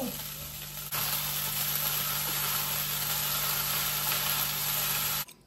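Noodles sizzling in a hot wok as they are tossed with the fried vegetables: a steady frying hiss that grows louder about a second in and cuts off suddenly near the end.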